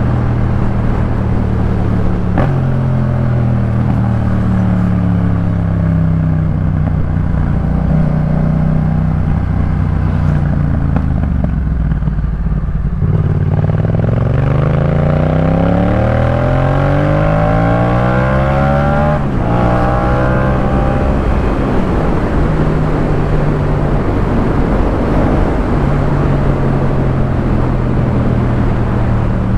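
Yamaha MT-07 parallel-twin engine through a Jeskap K4 full aftermarket exhaust, riding along at steady revs. About 13 seconds in the revs dip, then climb steadily for several seconds under acceleration. They drop sharply at a gear change, then settle to a steady cruise.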